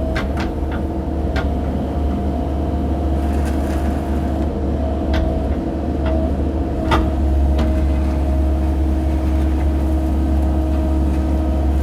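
Mini excavator's engine running steadily under work, with a few sharp knocks of the machine working scattered through.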